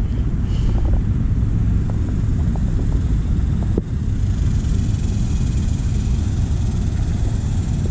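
Wind buffeting the camera microphone: a steady low rumble, with a single small knock about four seconds in.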